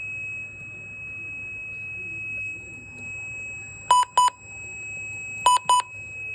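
Midland WR100 weather alert radio giving a steady high-pitched tone, with two pairs of short key-press beeps about four and five and a half seconds in; the owner says this radio doesn't work.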